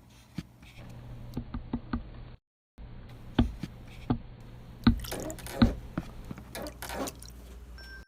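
Irregular drops of water dripping over a faint steady low hum, with a brief cut to dead silence about two and a half seconds in; the loudest drops come between three and six seconds in.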